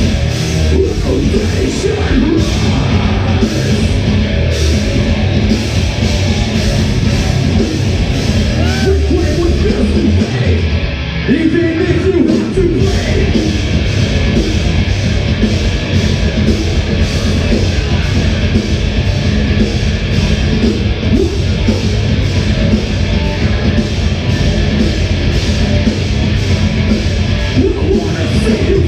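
A rock band playing live and loud, with electric guitars and a drum kit keeping a steady driving beat.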